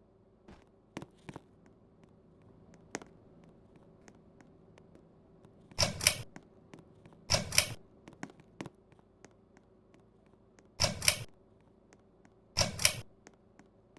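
Hampton Bay Middleton ceiling fan running with a faint steady hum, while its switch clicks sharply four times, each a quick double click like a pull chain being pulled and let go. A few fainter ticks come in the first few seconds.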